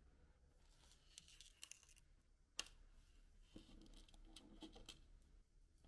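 Faint handling sounds of fingers working nylon beading line and a small acrylic bead against paper: soft rustling and light ticks, with one sharper click about two and a half seconds in.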